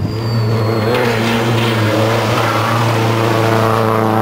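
Rally car engine running hard at high revs, a loud, steady note that starts suddenly, with a faint high whine in the first second.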